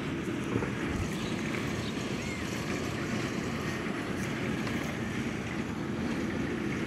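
Steady wind noise on the microphone with an even outdoor rumble, and a faint short chirp about two seconds in.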